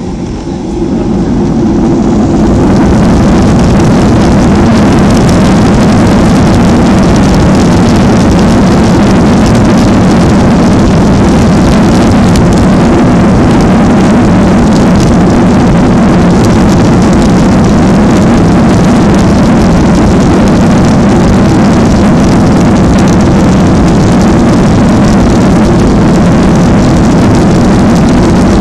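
Boeing 737's turbofan engines heard from inside the cabin, going up to takeoff thrust about a second or two in and then running loud and steady as the airliner accelerates down the runway on its takeoff roll.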